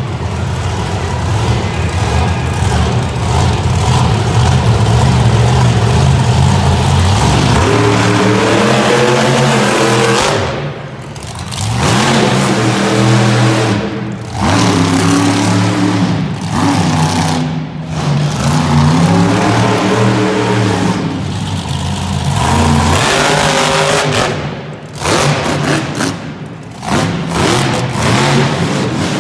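Loud monster truck engine, a steady drone at first, then revving hard over and over, its pitch climbing and dropping with each burst of throttle and briefly dropping off several times when the throttle is cut.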